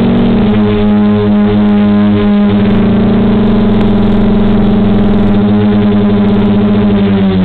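DJI F450 quadcopter's four DJI 2212 920KV motors and 9.5-inch propellers giving a loud, steady buzzing hum with several tones, the pitch shifting a little as it hovers and comes down slowly in position hold.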